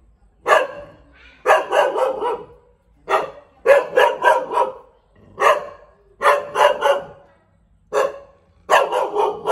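Thai Bangkaew dog barking over and over, the barks coming in quick runs of one to four with short gaps between.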